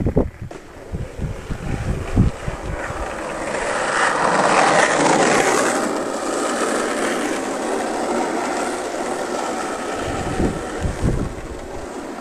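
Skateboard wheels rolling on asphalt as a rider coasts past downhill. The rolling noise swells to its loudest about four to six seconds in, then fades slowly as he rides away. Low wind buffeting on the microphone comes in the first few seconds and again near the end.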